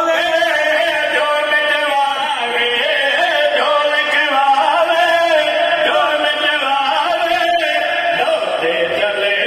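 Male voices chanting a Punjabi devotional qasida for Imam Hussain in long, held, wavering notes.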